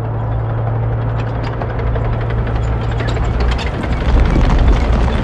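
War-film battle soundtrack: a steady low rumbling drone under scattered sharp cracks and ticks, growing louder about four seconds in.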